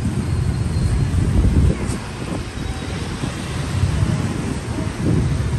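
Low, steady rumble of street traffic, with wind buffeting the microphone.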